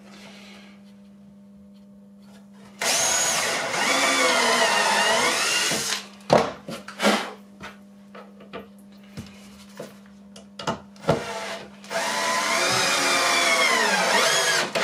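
Bosch cordless drill-driver run twice for a few seconds each, its motor whine wavering in pitch: first drilling a countersunk pilot hole, then driving a wood screw into a plywood frame. Small clicks and knocks in between from handling the screw.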